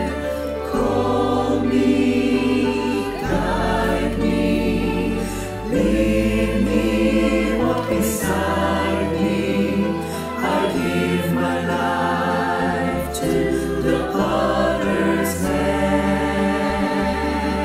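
A mixed choir of men and women singing a slow hymn in held, sustained chords, over low held bass notes that change every couple of seconds.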